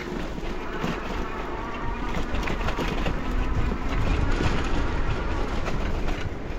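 Wind buffeting the microphone on a moving bicycle, with the tyres running over a dirt forest path and the bike rattling over bumps, slowly getting louder as it picks up speed.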